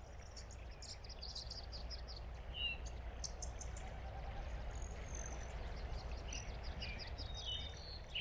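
Outdoor nature ambience: several birds chirping and singing in quick trills and short calls throughout, over a steady low rumble.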